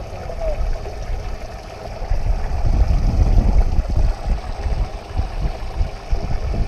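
Water running and splashing, with wind gusting on the microphone that grows louder about two seconds in.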